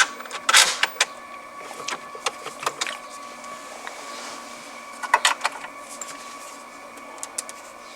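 Scattered light clicks and knocks of dashboard trim parts being handled and fitted, over a faint steady hum.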